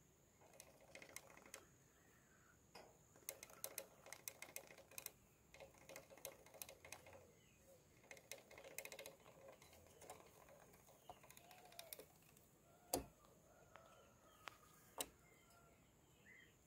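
Near silence broken by clusters of faint sharp clicks and ticks, then three louder single clicks near the end, with a few faint short chirps in the background.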